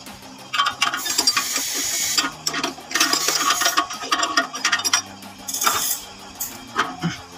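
Rattling, scraping metal of a bus clutch pressure plate and clutch disc being handled and worked into place against the flywheel, in several rough spells with a couple of short clanks near the end.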